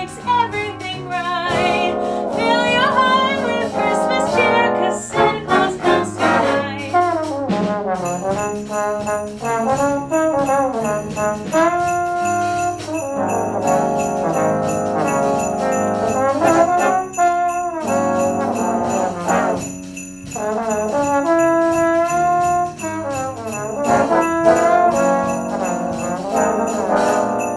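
Instrumental brass passage of a Christmas song arrangement: layered trumpet and trombone parts playing the melody and harmony, with sleigh bells jingling.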